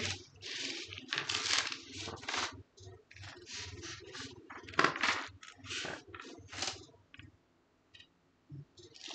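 Irregular clicks, clatters and rustles of small objects being handled close to the microphone. The loudest comes about five seconds in, and they thin out near the end.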